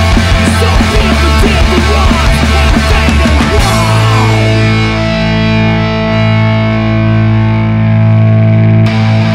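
Hardcore punk band playing with drums, bass and distorted electric guitar. About three and a half seconds in, the drums drop out and a distorted guitar chord rings on over a held bass note for about five seconds. A sharp attack near the end brings the high sounds back in.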